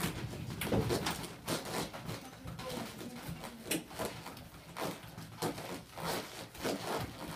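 Quick, irregular rustling and rubbing of clothing against a dental chair, with small knocks, from a patient's body jerking in an acted seizure.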